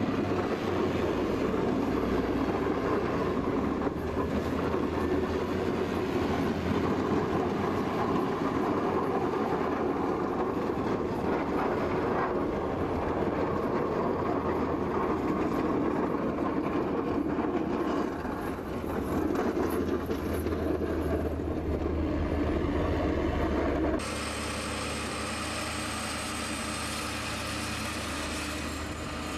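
Heavy snowplow truck's engine running under load as its front blade pushes through deep snow, a dense steady rushing drone. Near the end it changes abruptly to a quieter, steadier engine hum from a John Deere 7530 tractor stuck in mud.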